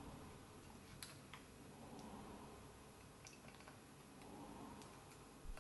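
Near silence: faint room tone with a few small scattered clicks, from a soldering iron tip and a thin metal blade working a solder joint on a lithium-ion battery pack's terminal.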